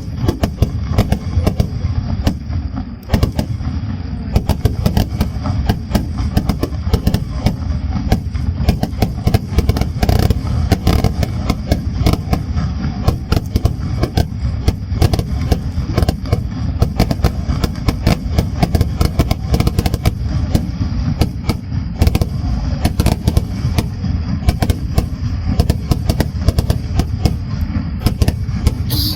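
Fireworks going off in a rapid, continuous barrage of sharp bangs and crackles over a heavy low rumble, with no let-up.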